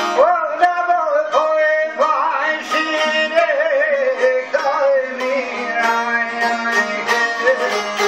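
Albanian folk tune on several strummed long-necked lutes, among them a two-string çifteli, with a man singing an ornamented, melismatic melody line over them.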